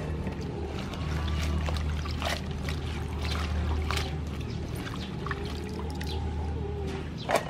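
Hands swishing chopped vegetables through water in a steel bowl, with irregular splashing and water dripping back as handfuls are lifted out, over a steady low hum. A louder splash comes near the end.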